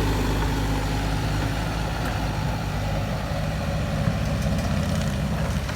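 Bobcat skid steer engine running steadily while the machine flattens a pile of cleared debris, with a few faint clicks.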